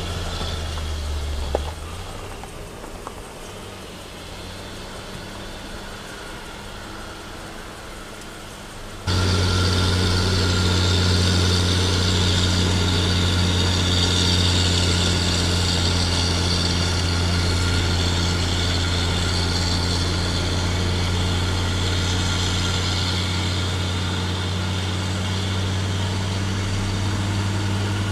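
Motor vehicle engine running steadily, heard from inside a following vehicle, with a short click about a second and a half in. About nine seconds in the drone jumps suddenly louder and then holds steady.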